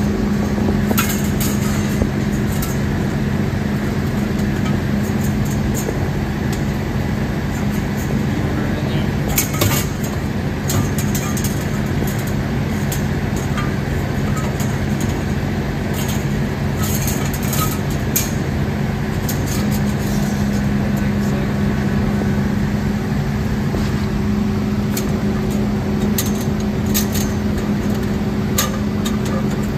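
Steady mechanical hum of running workshop machinery, with scattered light metallic clicks and knocks as a bandsaw blade is handled and worked into its slot.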